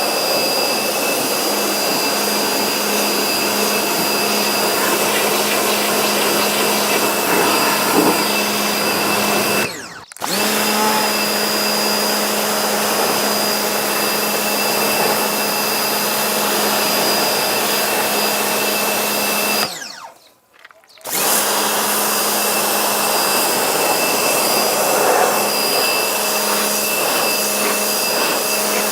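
Electric motor of a cleaning machine running steadily with a low hum and a high whine, cutting out twice: briefly about a third of the way in, and for about a second at around two-thirds.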